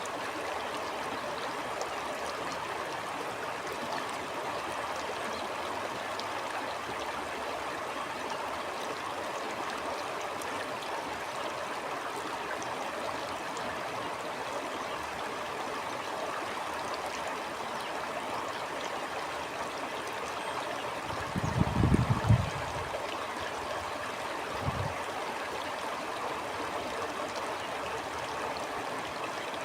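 Stream of water flowing steadily with a constant rushing. About three-quarters of the way in come two short low rumbles of wind buffeting the microphone, the first longer and louder.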